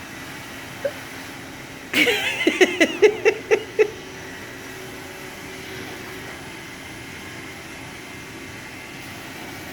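Robot vacuum running steadily, a low even hum. About two seconds in, a person laughs in a short burst of rapid pulses, louder than the vacuum.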